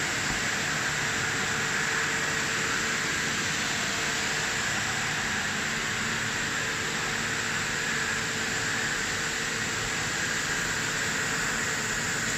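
Sigma Zenit 6 vertical machining center running under power: a steady mechanical hiss and hum with a faint constant tone.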